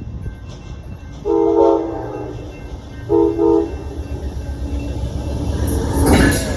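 Amtrak passenger train's diesel locomotive sounding its multi-tone air horn: one blast about a second in, then two short blasts about three seconds in, over the steady low rumble of the approaching train. Near the end the train noise grows louder as it passes.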